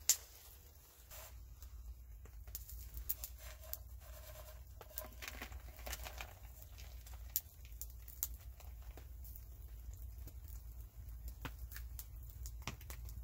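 Campfire crackling with scattered sharp clicks, and a frying pan clattering and scraping as food is tipped from it onto a plastic plate. There is a sharp knock right at the start, over a steady low rumble.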